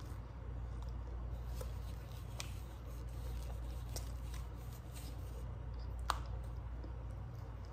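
Cornstarch chunks being pinched and chewed, giving soft, scattered squeaky crunches with one sharper click about six seconds in, over a steady low hum.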